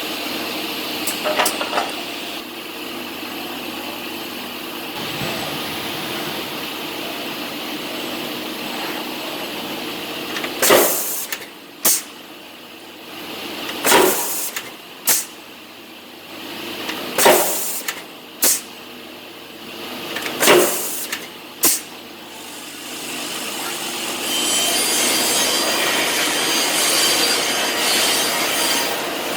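Robotic woodworking cell for sanding and bushing chair seats, with machinery running steadily. Partway through come four evenly spaced pairs of short, sharp bursts about three seconds apart. Near the end a louder steady hiss sets in.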